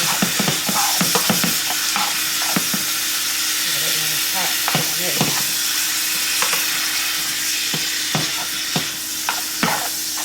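Sliced steak and peppers sizzling steadily in a hot pan while they sauté, with scattered clicks and scrapes of a utensil stirring them against the pan.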